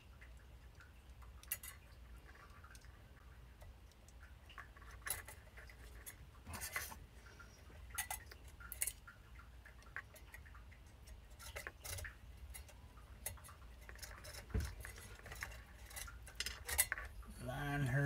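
Sparse small metallic clicks and clinks as wire fan clips are hooked onto the fins of a CPU tower cooler's heatsink, with a louder scrape near the end.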